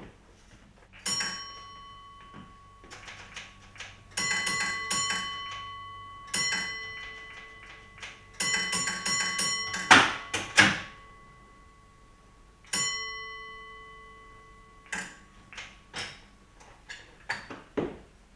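A small bell struck in short groups of strokes, each stroke ringing on, among heavy metallic clunks and knocks; the loudest clunks come about ten seconds in.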